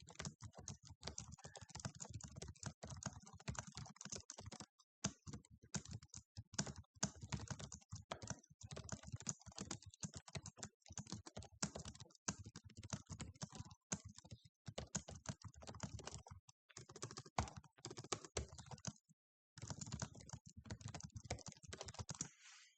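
Computer keyboard being typed on fast, a dense run of keystroke clicks with a couple of brief pauses, stopping suddenly near the end.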